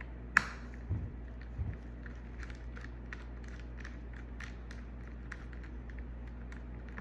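Small screwdriver tightening the laptop's screws: one sharp click about half a second in, two dull knocks, then a run of light ticks and clicks from the driver tip and case.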